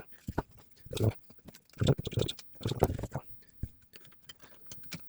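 Irregular clicks, knocks and scrapes of a circuit board and the control panel's chassis being handled and worked loose from their connectors. Three or four louder knocks come about a second apart in the middle.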